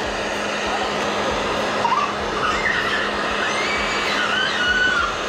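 Handheld hair dryer running steadily on a constant motor hum, its hot air blowing over clear protective film to shrink it onto a car number plate.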